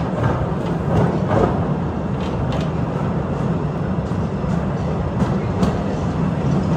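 Narrow-gauge cave train running along its track with a steady low rumble, with a few light clicks from the wheels and rails.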